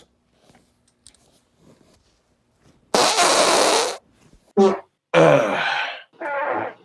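A loud fart lasting about a second, followed by a few short wordless vocal sounds from the man.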